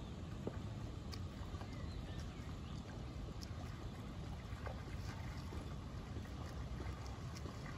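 Steady low rumble of wind buffeting the microphone, with a few faint ticks scattered through it.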